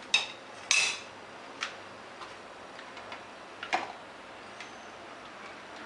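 Metal spatula clicking and scraping against a griddle and a plate as toasted pav buns are lifted onto the plate. A few sharp clicks come in the first second, the loudest about 0.7 s in, and another comes a little before four seconds in.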